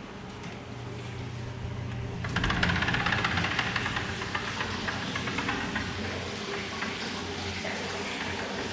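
Food sizzling and crackling in a hot pan, coming in suddenly about two seconds in, over a low steady hum.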